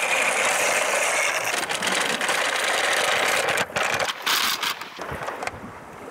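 A Tomica toy car-carrier truck's plastic wheels roll over loose pebbles, making a dense crunching rattle. Near the middle it gives way to a few sharp clicks and a quieter stretch.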